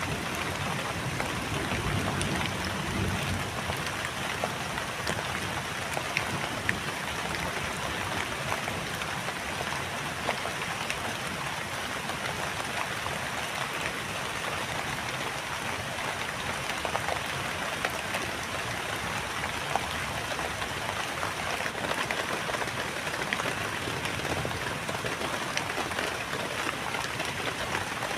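Steady rain falling, with scattered individual drop hits.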